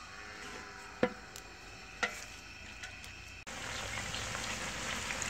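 Sliced onions frying in oil in a large aluminium pot, stirred with a metal slotted spoon that knocks sharply against the pot twice, about a second apart. About three and a half seconds in, a steady sizzle comes up.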